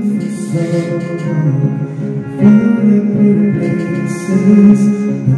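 Karaoke backing music from a DVD karaoke player, played loud through its loudspeakers: a continuous instrumental arrangement with a melody line.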